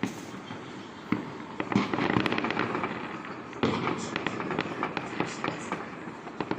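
New Year fireworks going off: a steady stream of cracks and pops, with dense crackling bursts about a second in and again a little past halfway.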